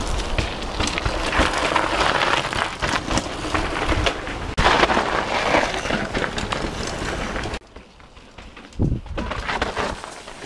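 Downhill mountain bikes rolling and skidding down a rocky dirt trail, tyres crunching over dirt and stones with knocks and rattles. The sound drops suddenly about seven and a half seconds in, then a short loud pass follows.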